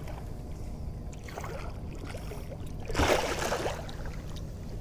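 Water splashing as a hooked catfish thrashes at the surface beside the boat, loudest in a short burst about three seconds in, over a steady low rumble.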